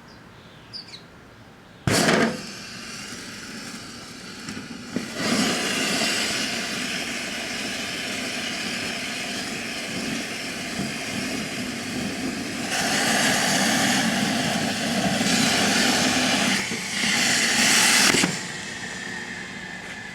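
Pinwheel firework burning inside a running microwave oven. A sharp bang comes about two seconds in, then a loud hissing spray that swells about five seconds in and surges twice near the end, all the charges burning at once. It cuts off suddenly about eighteen seconds in, leaving a steady hum.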